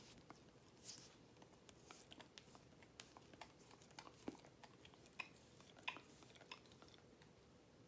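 Shetland sheepdog nibbling a small treat from a person's fingers: faint, irregular crunchy clicks of chewing.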